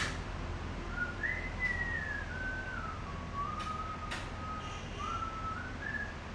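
A person whistling a slow tune, one note at a time, stepping up and down, with a few sharp clicks along the way.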